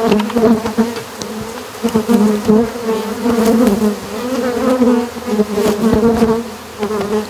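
A mass of agitated honey bees buzzing loudly close by, a steady drone that wavers slightly in pitch; the bees have just been vacuumed out of a wall and dumped onto a hive box, and are described as pissed.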